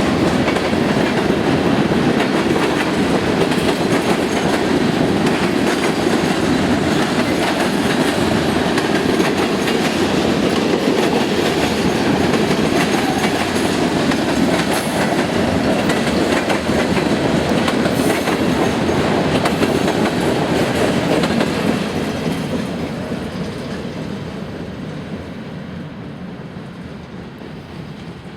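A train rolling past on the rails with a steady, loud rumble of wheels on track. The sound fades away over the last several seconds as the train recedes.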